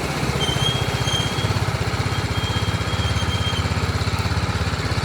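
BMW G 310 RR's single-cylinder engine idling steadily with an even, rapid beat.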